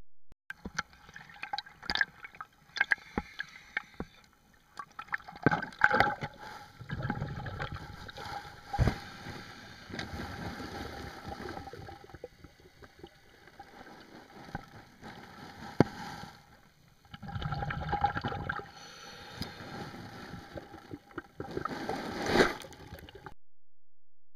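Water gurgling and sloshing as picked up by an underwater camera, with irregular knocks and clicks throughout and two louder stretches of low rumble about ten seconds apart.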